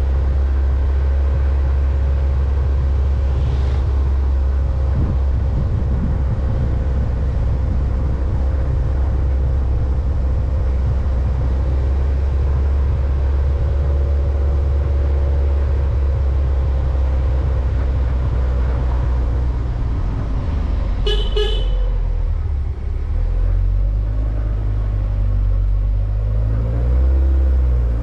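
Steady low rumble and engine hum of a vehicle on the move. About three-quarters of the way through come two quick beeps of a vehicle horn.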